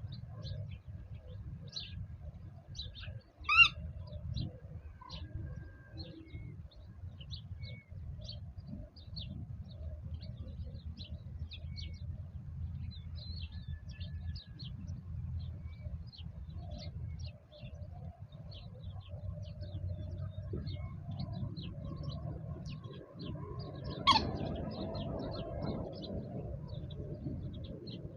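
Small birds chirping, many short high calls in quick succession over a steady low rumble, with two louder single calls, one about four seconds in and one sweeping down in pitch near the end.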